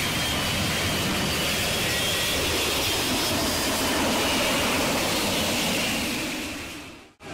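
Jet plane flying past: steady jet engine noise with a faint high whine, fading out near the end and cutting off.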